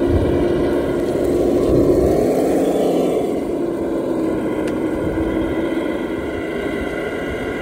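Traxxas radio-controlled scale crawler driving along a paved path: a steady motor and gear whine over tyre rumble, rising a little about two seconds in, then slowly fading as the truck drives away.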